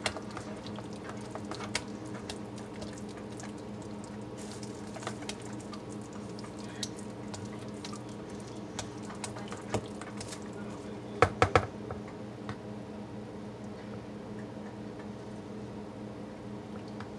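Silicone spatula stirring thick hot process soap paste in a plastic bowl: soft squishing and scraping with scattered light clicks, over a steady low hum. A quick run of four sharp knocks about eleven seconds in.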